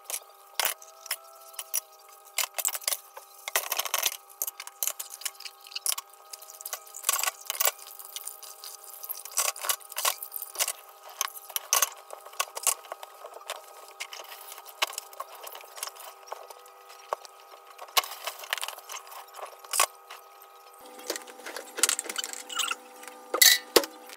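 Dishes, plates and utensils clinking and knocking against each other and a stainless steel sink as they are scrubbed with a sponge: irregular sharp clinks and clatters, several a second at times.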